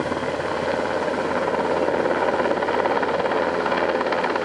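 NH90 military helicopter flying overhead: the steady, rapid chop of its four-blade main rotor.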